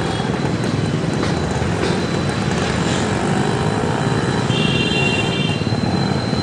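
Steady noise of riding a motorbike through dense city traffic: the bike's running and rolling noise among other scooters and motorcycles. A brief high tone sounds about two-thirds of the way in.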